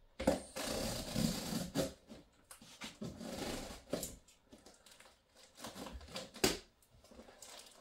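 A taped-up cardboard parcel being worked open by hand: bursts of rustling and scraping of cardboard and packing tape, with a few sharp knocks, the loudest about six and a half seconds in.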